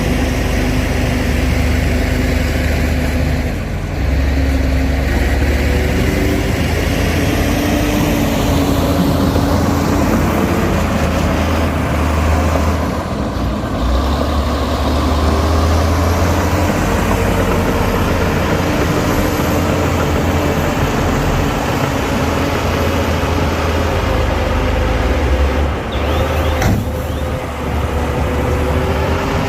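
Heavy diesel engine of earthmoving machinery running under load, its pitch rising and falling several times as the load changes, with brief dips about 4, 13 and 26 seconds in.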